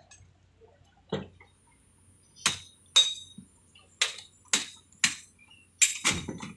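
A series of about eight sharp knocks or clinks, hard objects striking, irregularly spaced, with two close together near the end.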